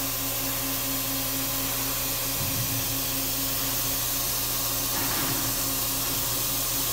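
Daewoo Puma 2500LM CNC turn-mill center, powered up and idling: a steady hum with an airy, fan-like hiss.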